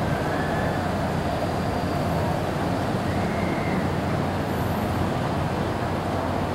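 Steady, even outdoor rumble of background noise with no single clear source, strongest in the low range.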